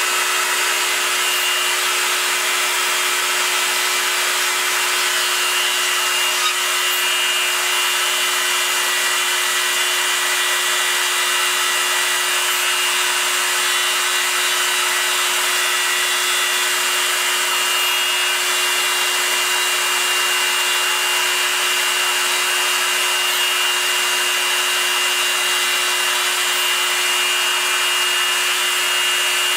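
Proxxon MF 70 micro milling machine with CNC conversion milling aluminium: the small spindle motor runs steadily with a high whine over a constant hiss.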